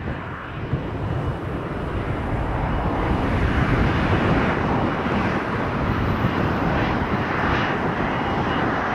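Airliner's jet engines heard as a steady rushing roar that grows slowly louder as the aircraft approaches.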